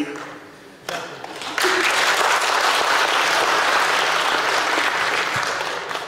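Audience applauding in a hall. The clapping starts suddenly about a second and a half in and keeps up steadily, after a short knock about a second in.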